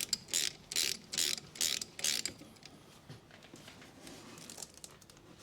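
Socket ratchet clicking in a run of short strokes as the brake caliper bolts are tightened, stopping a little over two seconds in.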